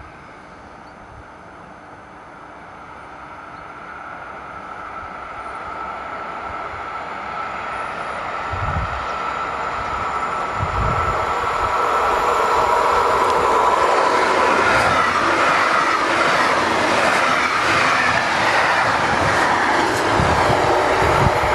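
NMBS electric multiple unit approaching and passing close by. Its sound grows steadily from a faint high whine into a loud rush of wheels on rail, with rapid clicking over the rail joints in the second half.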